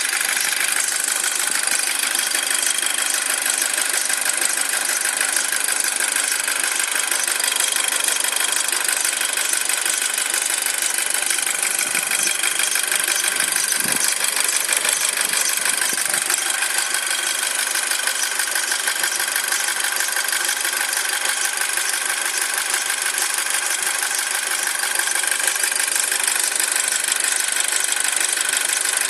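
2007 Audi A4 engine idling with a fast, steady squeaking/chirping, a noise that comes while the engine is still cold and goes away once it reaches operating temperature.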